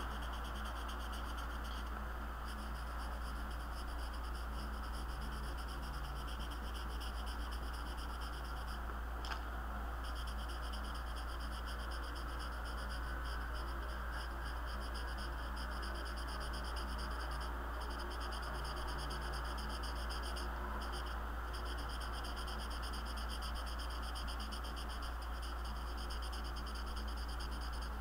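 Black felt-tip marker scratching rapidly on sketchbook paper while colouring in a solid area, pausing briefly a few times, over a steady low electrical hum.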